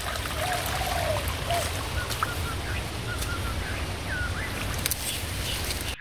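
A small stream of water trickling and splashing down a rocky channel from a forest waterfall, a steady rush of water, with a few faint bird chirps in the middle.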